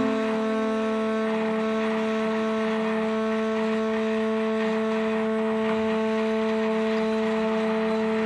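Ambient drone music: several steady held tones sustained throughout, with a softer lower note fading away in the first second or two.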